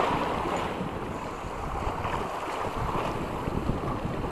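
Wind buffeting the microphone over the wash of sea waves: a steady rushing rumble with no distinct events.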